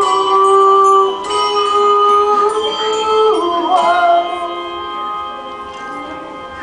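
Handbells ringing sustained chords at the close of a song. The chord changes about a second in and again just past three seconds, and the bells fade toward the end.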